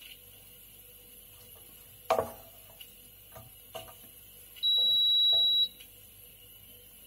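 A plate and spatula knocking and clinking against a frying pan as stir-fried beans are scooped onto the plate, the sharpest knock about two seconds in. About halfway through, a single high, steady electronic beep sounds for about a second.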